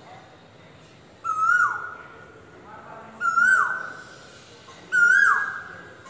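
Asian koel calling three times, about two seconds apart. Each call is a clear held whistle that slides sharply down at its end, and each is a little louder than the one before.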